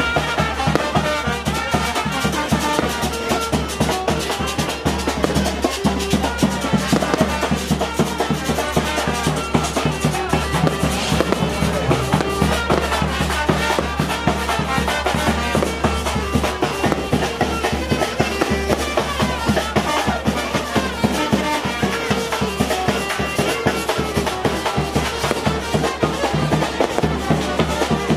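Live brass band playing rhythmic dance music: trumpet and saxophone over a steady drum beat.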